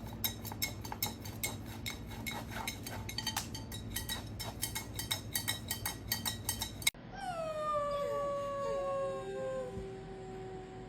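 Quick sharp clicks and taps, several a second, over a low steady hum for about seven seconds. After an abrupt cut a dog howls in long, drawn-out notes that slide down in pitch and then hold.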